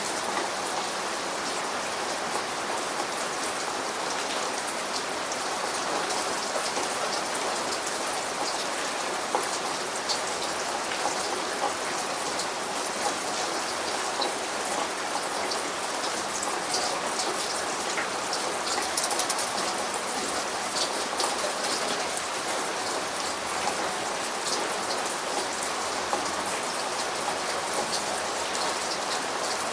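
Steady rain falling, a constant hiss with many individual drops pattering sharply on a surface.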